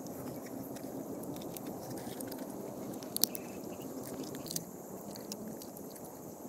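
Eating crab by hand: chewing and biting, with small clicks and cracks of crab shell being pulled apart, the sharpest crack about three seconds in, over a steady low background noise.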